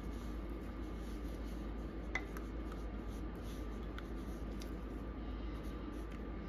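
Silicone spatula scraping thick brownie batter out of a ceramic mixing bowl into a baking dish: soft rubbing and squishing, with a sharp tap about two seconds in. A steady low hum with a faint high whine runs underneath.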